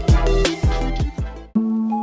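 Background music: a beat with deep, falling-pitch kick drums that breaks off about one and a half seconds in, switching to a gentle tune of held mallet-instrument notes, like a marimba.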